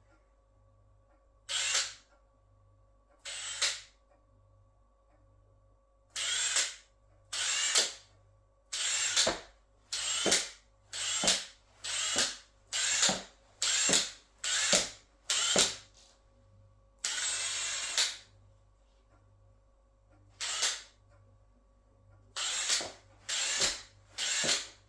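Milwaukee M18 Fuel half-inch mid-torque cordless impact wrench run in short trigger bursts of about half a second, roughly one a second, with one longer run a little past the middle.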